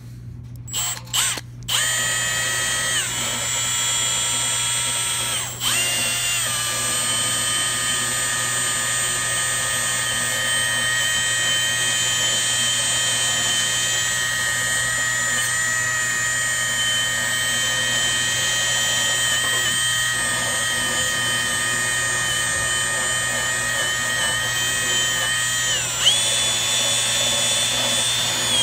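Power drill spinning a wire wheel against a furnace blower's shaft, brushing the shaft clean. A few short trigger pulls about a second in, then a steady whine that drops in pitch twice early on and rises again near the end as the speed changes.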